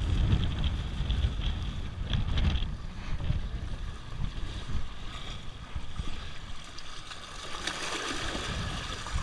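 Wind buffeting the microphone over small waves washing against jetty rocks; near the end, a louder rush of splashing water as a bucket is dipped into the surf.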